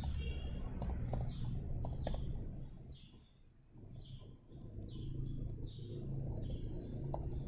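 Computer keyboard keys clicking now and then as text is typed and deleted, while a small bird chirps repeatedly in the background, a little more than once a second, over a low steady hum.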